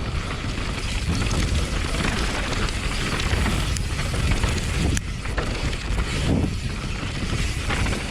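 Riding noise of a mountain bike going down a trail: wind buffeting the microphone over a steady rumble of tyres on dirt, with a few short knocks.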